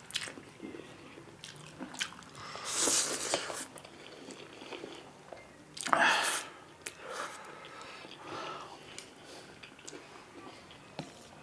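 Instant noodles being slurped up from chopsticks: two long slurps, about three seconds in and about six seconds in, with chewing and small wet mouth clicks between.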